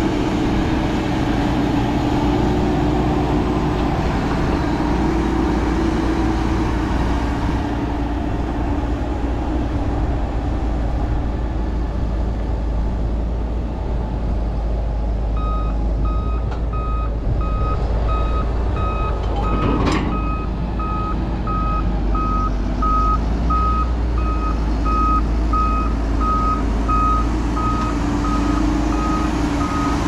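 Heavy four-wheel-drive tractor diesel engines running under load while pushing and packing corn silage. About halfway in, a reversing alarm starts beeping in a steady rhythm, and there is a single sharp clank about two-thirds of the way in.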